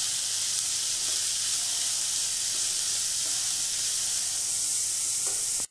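Finely chopped onions frying in hot oil in a kadai on a medium flame: a steady sizzle as they soften.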